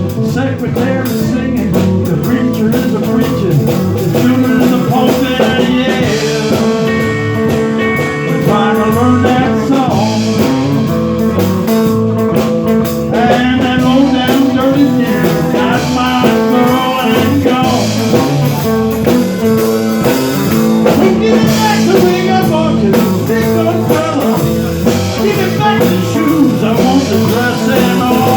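Blues band playing an instrumental passage: guitar lines with bending notes over bass and drums.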